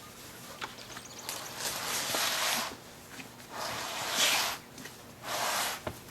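Large cardboard shipping box being handled and its packed contents slid out, giving three rough scraping stretches with a few knocks in between.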